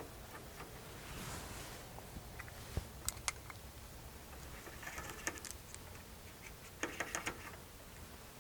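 Scattered light clicks and rustling from small parts being handled, with a few sharp clicks about three seconds in and quick clusters of clicks later on.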